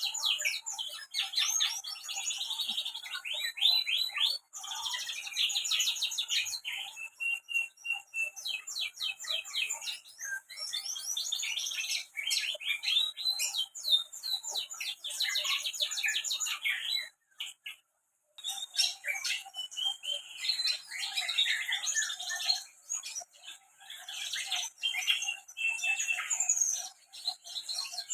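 Domestic canary singing a long, continuous song of rapid trills and rolls, with one brief pause a little past the middle.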